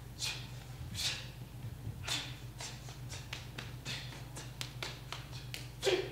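Irregular sharp slaps and clicks, about one every second, with a quick run of thinner clicks in the middle and a louder slap near the end, over a low steady hum.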